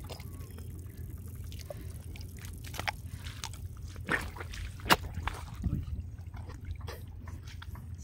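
Hands squelching and splashing in wet mud and shallow water while digging into a crab burrow, with scattered wet smacks, the sharpest about five seconds in, over a steady low rumble.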